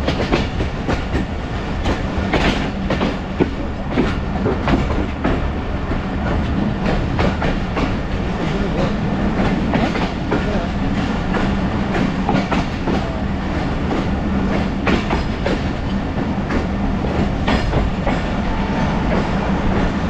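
Passenger coach rolling along the track, heard from an open window: steady running noise and air rush, with irregular clicks and clatter of the wheels over rail joints and a steady low hum beneath.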